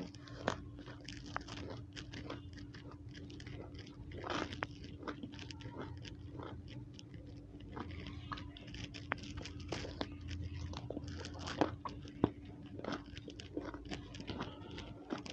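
Biting and chewing a raw small round purple brinjal (eggplant): a run of crisp, irregular crunches. A faint steady hum sits underneath.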